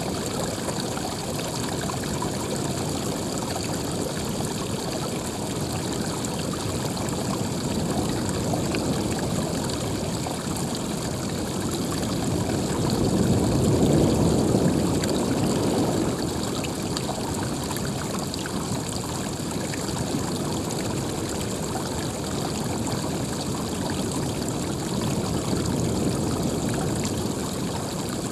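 Running water flowing steadily, a continuous rushing hiss that swells louder for a couple of seconds about halfway through and again slightly near the end.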